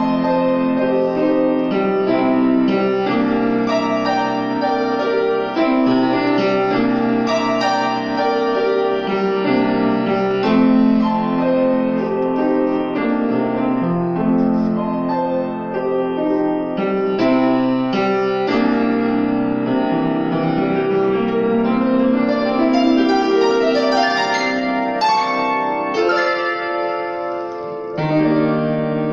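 Grand piano played solo: a steady stream of notes and chords over a bass line. There is a short lull near the end, then a new louder chord.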